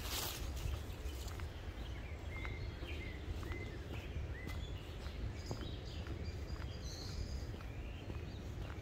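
Outdoor ambience: wind rumbling on the microphone, with a brief louder gust right at the start, and small birds giving short, faint chirps every second or so.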